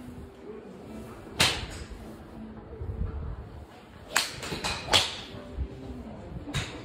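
Sharp cracks of golf clubs striking balls from neighbouring driving-range bays: a loud one about a second and a half in and three more between four and five seconds. The golfer's own driver strikes the ball near the end.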